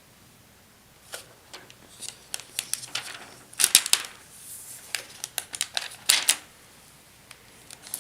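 Hands handling a replacement laptop LCD panel and its plastic tape and film: a run of sharp clicks and crinkles, loudest about halfway through and again a little after six seconds.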